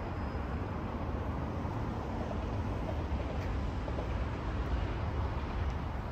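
Steady, low outdoor background rumble with no distinct event standing out.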